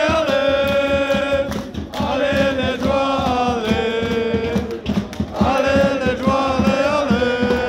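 Football supporters chanting a song in unison, in long held phrases with short breaks about two and five seconds in, with hand clapping through it.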